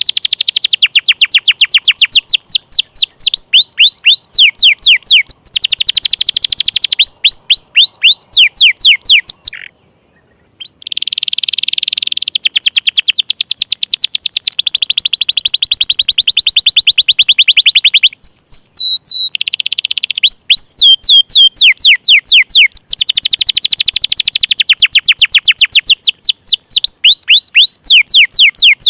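Domestic canary singing: long, rapid trills of repeated high, falling notes that change speed and pitch from phrase to phrase. The song breaks off for about a second a third of the way in, then resumes with a buzzier phrase.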